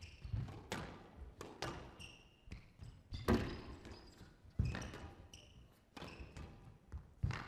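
Squash rally on a glass court: the ball cracks off the rackets and walls in sharp, irregular hits, with short high squeaks from the players' shoes on the court floor.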